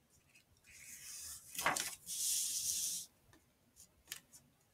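A page of a thin softcover book being turned and pressed flat by hand: paper rustling in two soft swishes, the second, about two seconds in, the longer.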